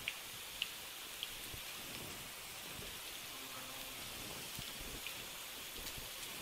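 Battered chicken pieces deep-frying in hot oil in an earthenware pot: a steady sizzle with a few sharp pops.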